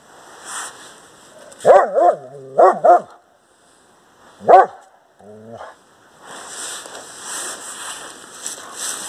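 A large dog barking in short, loud barks, two pairs and then a single bar: protective barking at noises it found strange. A steady rustling noise follows in the last few seconds.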